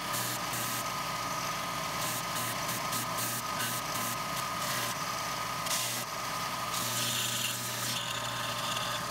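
Craftsman 4-inch belt / 6-inch disc sander running, its belt sanding small wooden pieces pressed against it. A steady motor hum with a higher whine, and a gritty hiss of wood on the belt that comes and goes as the pieces are pressed on and lifted off.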